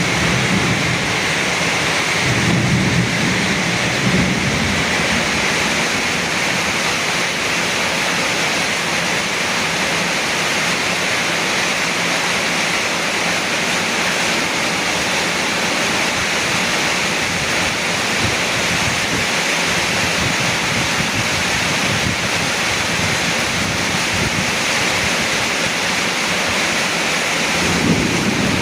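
Heavy rain pouring down in strong wind, a steady dense hiss. Brief low rumbles come about two to four seconds in and again near the end.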